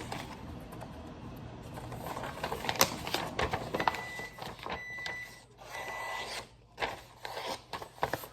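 Microwave oven humming, then clatter and knocks, and three short high electronic beeps about four to six seconds in.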